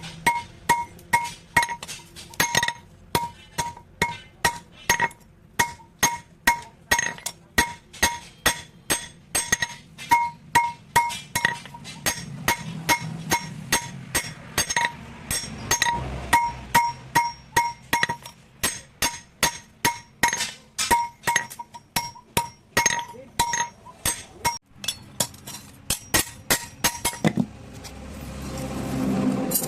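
Blacksmith's hammer striking steel on an anvil, about three blows a second with a bright metallic ring on each strike, as a sickle (hasua) blade is forged. There are brief pauses, and the hammering stops near the end.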